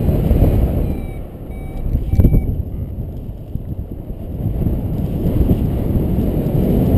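Wind rushing over the microphone of a paraglider in flight, a low rumble that eases off in the middle and builds again. A few short, faint high beeps from the flight variometer come in the first couple of seconds, signalling a climb.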